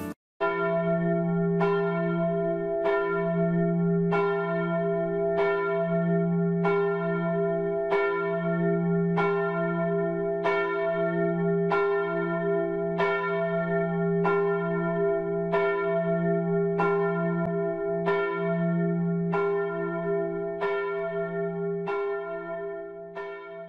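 A single large church bell tolling slowly and evenly, one stroke about every 1.3 seconds, each stroke's hum ringing on into the next. The tolling fades out near the end.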